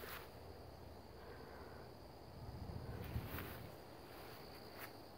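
Faint steady high-pitched trill of insects, with a brief low rumble about two and a half seconds in.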